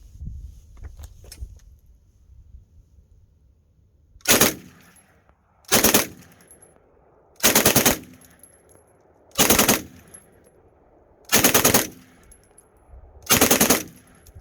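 Sten submachine gun firing six short bursts of 9 mm fully automatic fire, spaced about two seconds apart, starting about four seconds in. Each burst is a quick string of shots with a short echo after it.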